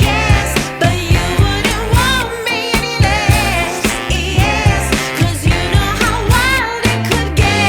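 Background pop song with singing over a steady beat.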